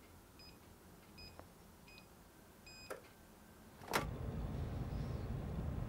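A faint electronic beep repeating a little more than once a second for about three seconds. A sharp click follows about four seconds in, and after it a steady low hum sets in.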